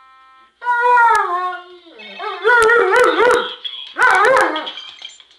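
German shepherd howling at a cell phone ringtone: a faint ringtone sounds at the start, then the dog lets out three loud howls, the first sliding down in pitch and the others wavering up and down.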